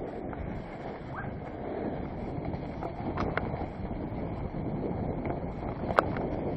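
Mountain bike riding over a trail covered in dry fallen leaves: a steady rustle and crunch of the tyres through the leaves, with wind noise on the microphone. A sharp click comes about six seconds in.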